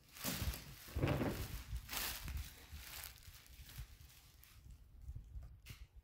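Plastic garbage bag crinkling and rustling in three loud bursts over the first two seconds or so, then fainter scattered rustles and small clicks.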